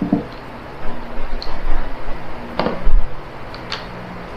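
Metal socket clicking and knocking against a cordless impact wrench's anvil as it is fitted by hand, a handful of separate sharp clicks with the loudest about two and a half seconds in; the wrench's motor does not run.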